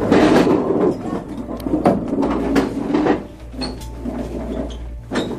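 Classroom commotion as pupils get up from their desks: chairs scraping and furniture knocking, with many clicks and bumps, loudest in the first three seconds.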